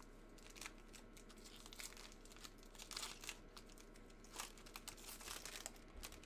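Faint rustling and crinkling of baseball trading cards being handled, with scattered light ticks.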